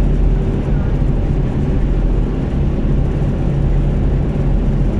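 Road vehicle driving at highway speed, heard from inside the cabin: a steady low drone of engine and tyre rumble over road noise.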